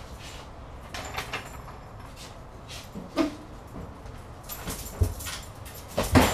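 Heavy metal vending machine being walked and pushed across a concrete floor: scattered knocks, scrapes and clunks of the cabinet and its feet, the loudest near the end.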